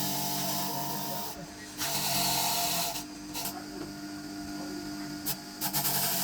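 Several bursts of hissing, one long at the start, another about two seconds in, short ones after that and a longer one near the end, over a steady machine hum.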